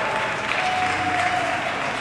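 Audience applauding, a steady patter of clapping, with a faint thin held tone about halfway through.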